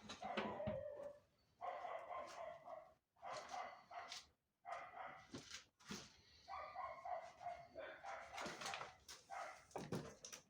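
A dog barking in a run of repeated short bouts with brief gaps between them.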